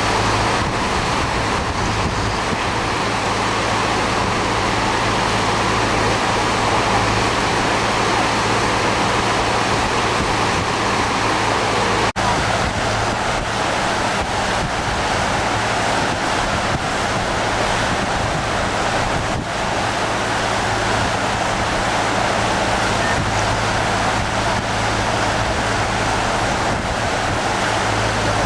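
Steady rushing of whitewater on the Beas river, with wind buffeting the microphone; the sound breaks off for an instant about twelve seconds in.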